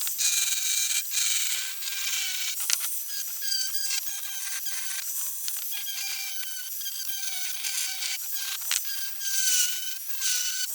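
Grinder running against metal, grinding paint off steel bicycle forks: a continuous high whine that wavers in pitch as the disc is pressed on and eased off, over a rough scraping hiss, with a few sharp clicks.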